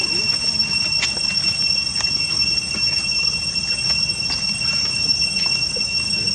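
Steady high-pitched drone of cicadas in the trees, one unbroken tone with a higher overtone. A few faint clicks sound over it, the sharpest about a second in.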